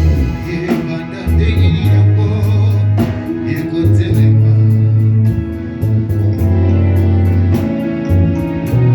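Worship music from a band with singing: a prominent bass line changing note every second or so, guitar and steady drum beats.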